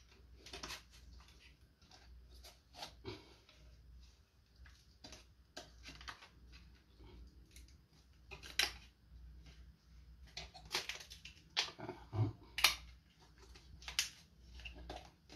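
Irregular light clicks, taps and knocks of hand work on small car parts, the sharpest ones about a third of the way in and a cluster toward the end.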